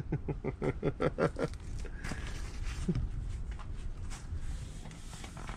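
A man's voice making a quick string of about eight short sounds in the first second and a half, followed by faint knocks and rustling.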